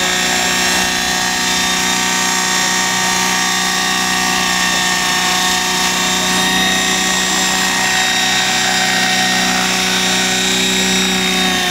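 Radio-controlled Heli Baby replica model helicopter hovering: a steady mechanical whine from its drive and rotor, with the pitch shifting slightly in the second half.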